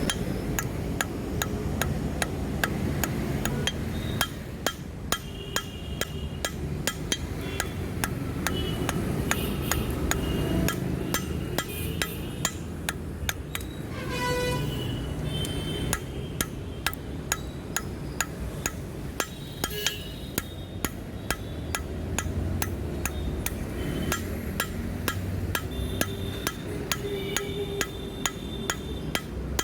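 Hammer blows on steel over an anvil at a steady pace of about two strikes a second, each strike ringing, as a spanner is forged into a knife. A steady low rumble runs underneath.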